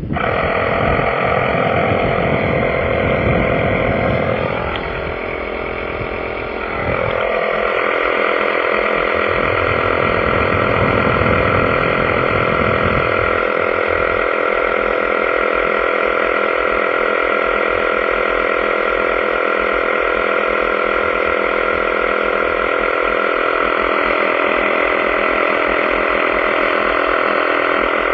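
Small portable air compressor switched on and running steadily with a whine made of several fixed tones. A lower rumble beneath it drops away at about seven and thirteen seconds in.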